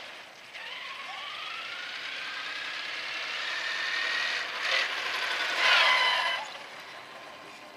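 Radio-controlled Red Cat Shredder XR truck driving: its motor and gears whine, rising steadily in pitch as it speeds up, then a louder, rougher burst as it passes close by about six seconds in.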